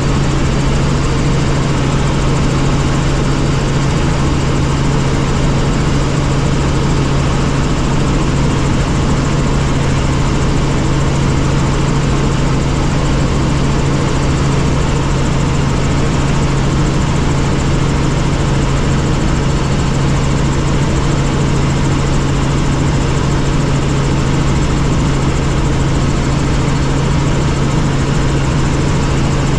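Helicopter in flight: a loud, steady engine and rotor drone with a strong low hum, unchanging throughout.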